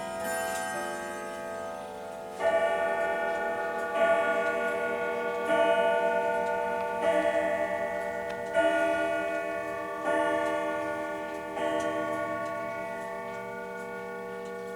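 Triple-chime grandfather clock striking seven even strokes about a second and a half apart, each note ringing and slowly fading, with the clock's ticking underneath.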